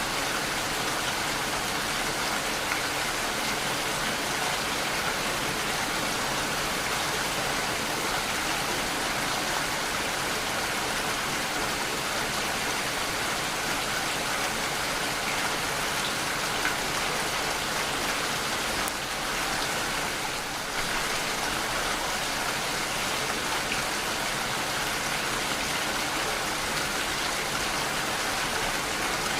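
Steady rainfall: an even hiss of falling drops, easing slightly for a moment about twenty seconds in.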